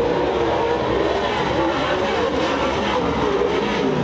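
Several short-course off-road race trucks running hard together, engine pitch rising and falling as they rev and back off through the turns.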